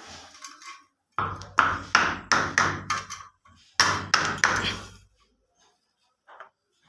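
Sharp ringing taps on metal during plumbing fitting work: a run of about six quick strikes, a short pause, then about four more.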